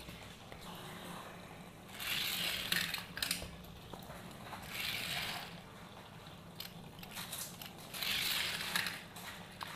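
Small die-cast toy car rolling down a plastic race track, three short rattling runs, each about a second long.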